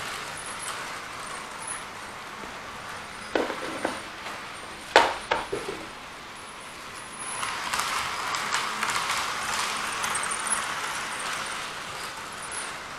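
A few knocks and clicks of handling close to the microphone. From about halfway, a model train runs along the track as a steady rattling hiss with fine ticks.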